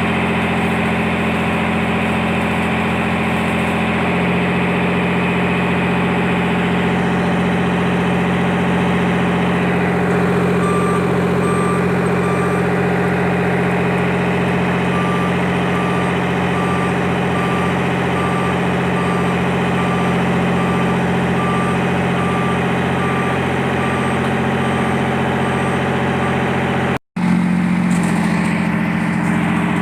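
Heavy-equipment diesel engine running steadily at idle. From about ten seconds in, a warning alarm beeps at a regular pace of about one beep a second, and the sound cuts out for a moment near the end.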